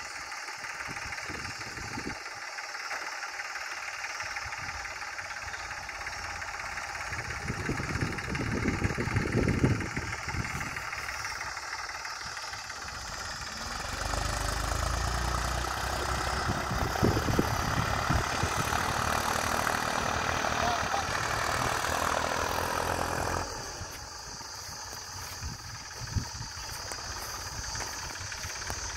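Farm tractor engine running as it pulls a plough through a field. It gets louder for several seconds in the middle, then drops off suddenly.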